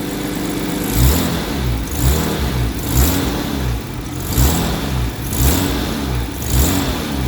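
1989 Jaguar XJS 5.3-litre V12 engine idling, then blipped on the throttle six times, about once a second from a second in, each rev rising and falling back to idle. The revs sound pretty good to the owner, though he wonders whether it is a bit louder and whether the ignition timing is retarded on this engine, which has been cutting out when hot and starting badly.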